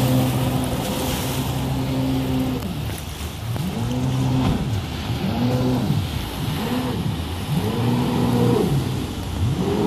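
Homemade jet boat's engine running at a steady pitch, then revved up and down several times in quick succession as the boat turns on the water, over a steady rushing noise.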